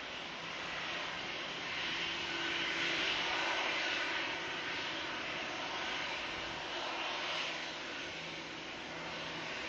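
Airbus A320-200 jet engines during landing: a steady rushing roar with faint whining tones that swells to its loudest about three seconds in, then eases off.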